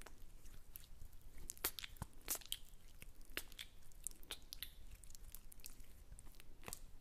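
Close-miked ASMR mouth sounds: irregular wet clicks and crackles.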